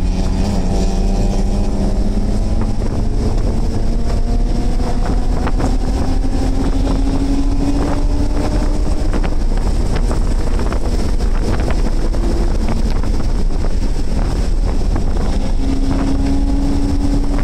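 BMW E46 race car's engine pulling hard under acceleration, heard from inside the cabin. Its pitch climbs steadily for about nine seconds, drops off, and settles again near the end, over a heavy rumble of road and wind noise.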